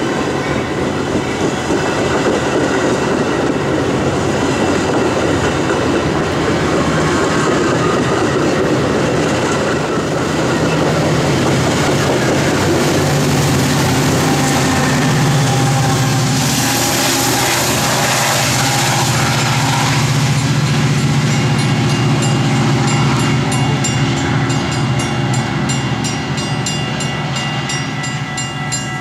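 Bilevel commuter coaches rolling past on steel wheels, followed by the rear MPI MPXpress MP36PH-3S diesel locomotive's engine running under load as it passes, pushing the train away. As the train clears, grade-crossing warning bells ring steadily.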